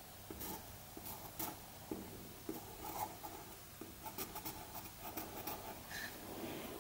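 Pencil writing on wood: a run of short, quick scratching strokes as a few characters are written.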